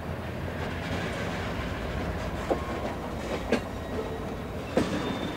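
Covered hopper freight cars rolling slowly on yard track with a steady low rumble. From about halfway in, the wheels knock three times, about a second apart, as they cross rail joints.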